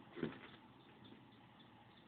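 A single short knock or scrape about a quarter second in, then faint room noise.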